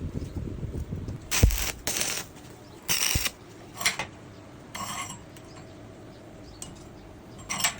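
Metal parts of a hand tool clinking and scraping in a series of short, separate strokes, about six in all, with the louder ones in the first half.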